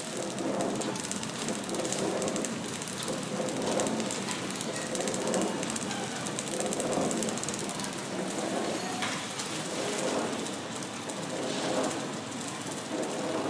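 Automatic horizontal flow-wrapping machine running, packing plastic spoons with tissue into film: a steady mechanical clatter and hiss that swells regularly about every one and a half seconds.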